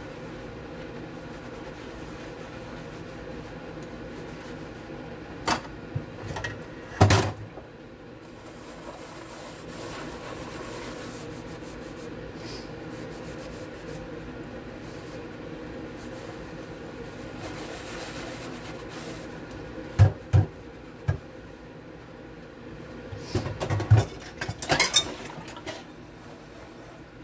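Pots and dishes being hand-washed with a sponge in a stainless steel sink: soft scrubbing, with pots and pans knocking against each other and the sink now and then, the sharpest clatters about 7 s and 20 s in and a cluster near the end. A steady faint hum lies underneath.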